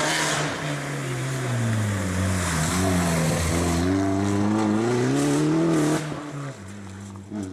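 Opel Corsa OPC rally car's turbocharged four-cylinder engine under load, its pitch falling as it slows, then climbing again as it accelerates hard; it drops away sharply about six seconds in.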